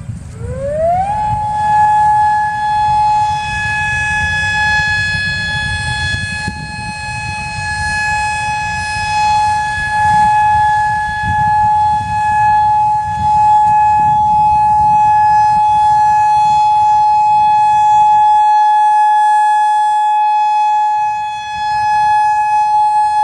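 Whelen WPS-4004 electronic outdoor warning siren sounding its full-alert signal: the pitch rises quickly in the first second, then holds one long steady tone.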